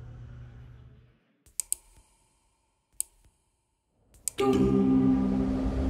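Computer pointer clicks on a shutdown dialog: about five sharp, separate clicks in near quiet, two together, then one, then two more. A low hum fades out in the first second, and near the end a loud steady rumble with a low drone cuts in abruptly.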